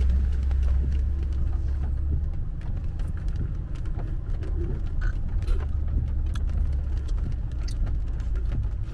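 Rain hitting a car's roof and windshield, heard from inside the car as many irregular sharp ticks, over a steady low rumble from the car.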